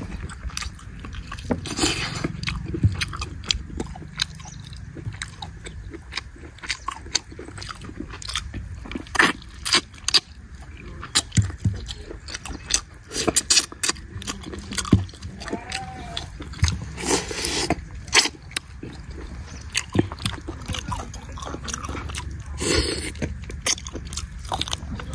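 A person chewing and biting chicken leg curry with rice, eaten by hand: irregular wet mouth clicks and smacks, with a few longer noisy bursts of chewing.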